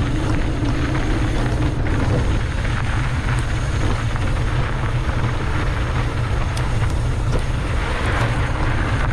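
Mountain bike descending a trail: steady wind buffeting the camera's microphone over the rumble of tyres on the dirt, with a few small clicks and rattles from the bike.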